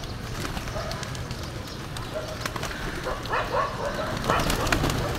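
Flock of feral pigeons milling and flapping their wings, with a few short calls about three and four seconds in.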